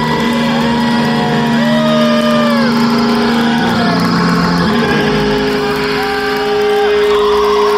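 Electric guitar feedback ringing through stage amplifiers: a steady held drone, with higher squealing tones that bend up, hold and fall away again and again.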